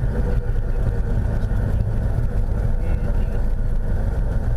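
Piper PA-28 Warrior III's four-cylinder Lycoming engine and propeller running steadily, heard from inside the cockpit as the plane rolls along the runway.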